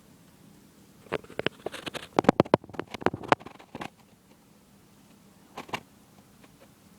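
A rapid run of small clicks and knocks, several close together, from small objects being handled and set down on a hard surface, with two more clicks near the end.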